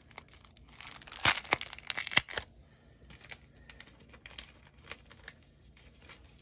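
Paper and plastic packaging crinkling and rustling as an instruction sheet and plastic sticker sleeves are handled in gloved hands, loudest for about a second and a half from around a second in, then a few lighter crackles.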